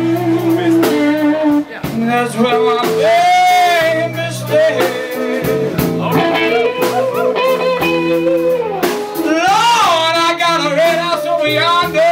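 Live band playing a slow blues: electric guitar with a male voice singing over it.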